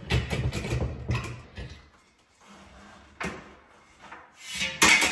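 Round flush-mount ceiling light fixture being twisted and handled against the ceiling: scraping and rubbing for the first second and a half, a single click about three seconds in, and a louder cluster of knocks near the end.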